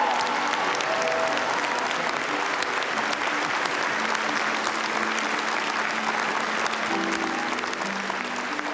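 Gallery crowd applauding: dense, continuous clapping from many people, slowly dying down near the end, with slow background music underneath.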